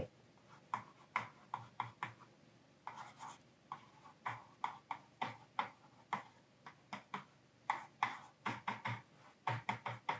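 Pen writing by hand on the screen of a Portronics Ruffpad 8.5M LCD writing pad: faint, short scratching strokes one after another, coming closer together near the end.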